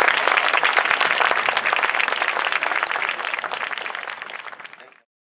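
Audience applauding. The clapping thins out and fades over the last two seconds, then cuts off abruptly about five seconds in.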